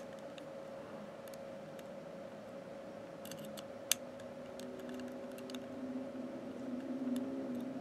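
Small screwdriver loosening the terminal screws on a rebuildable dripping atomizer's metal deck: faint scattered metal clicks and ticks, with a sharper click at the start and another about four seconds in, over a steady faint hum.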